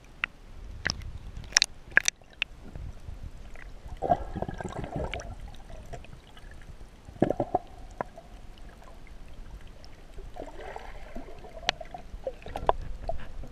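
Water heard underwater through a camera: a low, muffled rumble with bubbly gurgling a few times and several sharp clicks.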